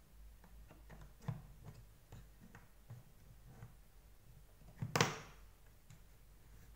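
Scattered light clicks and taps as the small motor and wires are fitted into the white plastic brush-head housing of a Deerma VC25 vacuum, with one louder click about five seconds in.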